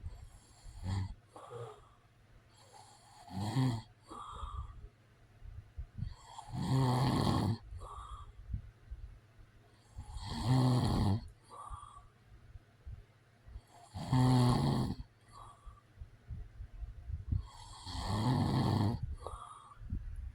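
A man snoring. The first few seconds hold shorter, softer breaths. From about six seconds in come four long, loud snores, one every three and a half to four seconds, with small puffs of breath between them.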